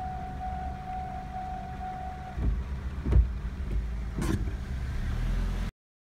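Japanese railway level-crossing warning bell ringing in a steady pulsing tone, then stopping about two and a half seconds in. A low rumble follows with two sharp knocks, the louder one about three seconds in, and the sound cuts off suddenly near the end.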